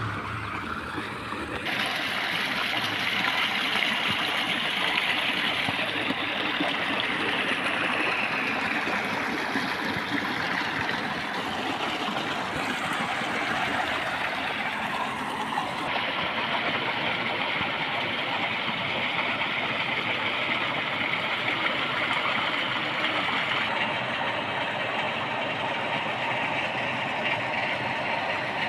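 Steady rushing of water flowing along a concrete irrigation channel fed by a tubewell. The sound gets louder about two seconds in and shifts in tone a couple of times after that.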